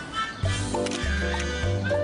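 Upbeat background music with a bass line stepping from note to note about twice a second.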